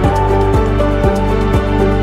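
Background music with held notes over a steady kick-drum beat, about two beats a second.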